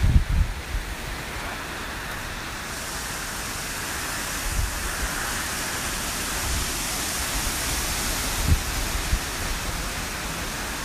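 Hurricane wind and rain, a steady rushing hiss that grows stronger about three seconds in. Gusts thump on the microphone at the start, around the middle and again near the end.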